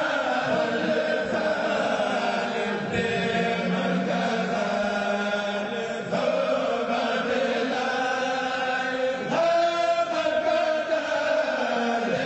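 A group of voices chanting together, with long, drawn-out lines and a new phrase about nine seconds in.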